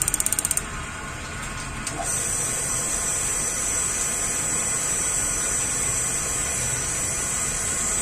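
Spark igniter of a gas water heater clicking rapidly, stopping about half a second in as the burner catches. The gas burner then burns with a steady hiss, and a higher hiss joins about two seconds in and holds, while a replacement flame-sensor electrode is tried to see whether the flame stays lit.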